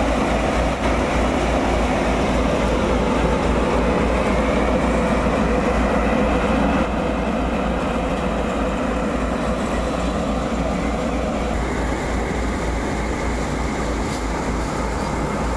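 Tractor-powered paddy thresher running steadily as rice sheaves are fed into its drum, over the tractor's engine; the sound drops slightly about seven seconds in.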